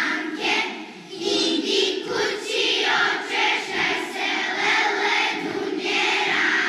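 A large group of children singing together as a choir.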